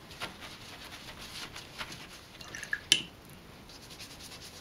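Wet paintbrush stroking damp paper and a tissue dabbing the wet colour, soft brushing and squishing sounds, with one sharp click about three seconds in.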